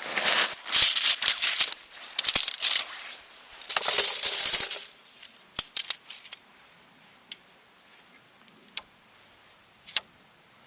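Rustling, crinkling handling noise in several loud bursts, then a few sharp light clicks a second or so apart.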